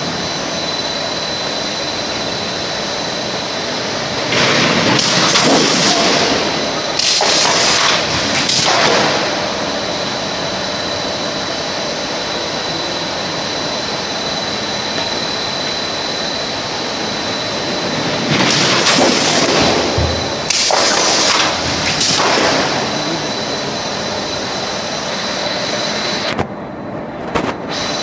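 Stainless steel cut-to-length line running, a steady mechanical noise with a thin high whine. Several louder rushing surges come in two groups, three in each, about a third of the way in and again past the middle.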